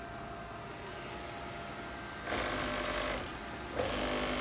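JMC iHSV57 100-watt servo motor driving a Taig CNC mill's table along its lead screw at 150 inches per minute. There is a short run with a steady whine about two seconds in, then a second run starting near the end. The vibration in it comes from the makeshift shaft coupler, which the owner is pretty confident of.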